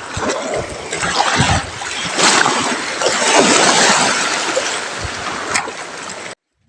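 Sea waves washing and splashing against a rocky shore, swelling about two seconds in, then cutting off abruptly near the end.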